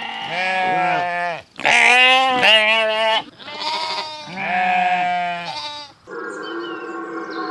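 Sheep bleating: three long bleats with a wavering pitch, one after another. About six seconds in, a steadier, fainter droning sound takes over.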